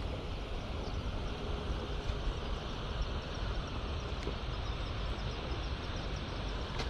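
Steady rumbling wind noise on the microphone, with an even outdoor hiss and a few faint ticks.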